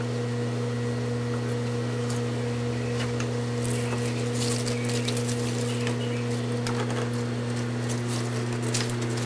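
Light clicks and clinks of small plastic toy dishes and spoons being handled, sparse at first and more frequent from about four seconds in, over a steady low hum.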